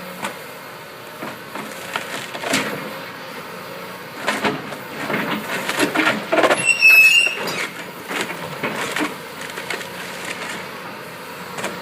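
Excavator tearing at a bridge under demolition: scattered clunks and cracks as the structure is strained, with a short high metal squeal about two-thirds of the way through. The bridge is about ready to break loose.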